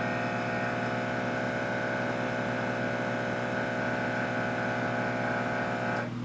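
Viair 100C air compressor running steadily as it fills the air tank, then cutting off suddenly about six seconds in, as the new pressure switch shuts it off at 130 psi. A low steady hum carries on underneath.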